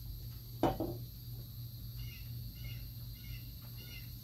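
Rural outdoor ambience: a steady high insect drone, with short high chirps repeating in small groups from about halfway through. There is one brushing thump about half a second in.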